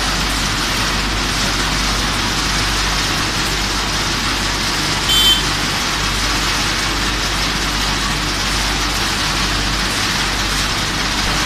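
Wood pellet production line running: steady machinery noise with a constant low hum. About five seconds in, a short high-pitched tone sounds briefly over it.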